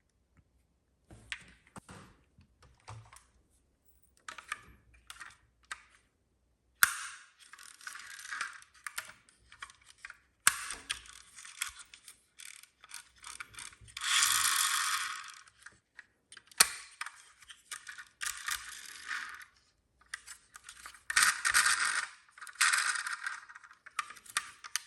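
Small toy vehicles being handled and pushed about on a hard surface: scattered clicks and light rattles, a few sharp clacks, and longer rattling rolls of little wheels, the loudest about halfway through.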